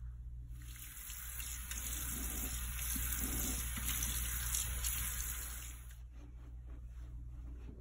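Bathroom sink tap running, the water splashing as a face is rinsed, stopping about six seconds in.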